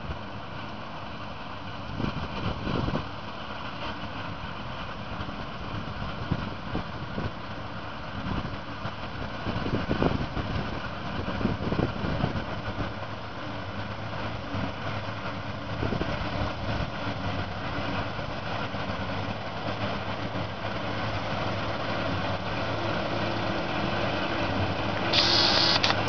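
Claas Lexion 660 combine harvester running as it cuts grain: a steady engine and threshing drone with occasional louder surges, growing slowly louder as it comes closer. A brief higher hiss is heard near the end.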